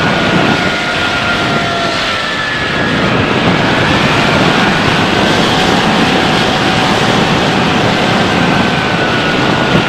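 Rushing airflow over an RC plane's onboard camera as the Bixler 3 foam plane glides with its motor throttled off, with a faint steady whine under the wind noise.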